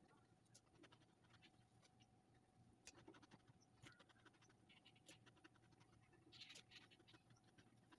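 Near silence with faint scattered clicks and scratches of fingers handling cucumber slices on a plate.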